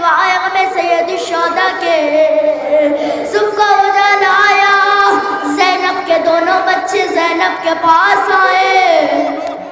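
A single amplified voice singing a slow mourning lament, with long, wavering held notes. It falls away just before the end.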